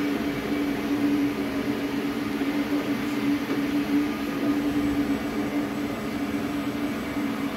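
Steady hum of running machinery: a constant low tone over an even whir, unchanging throughout.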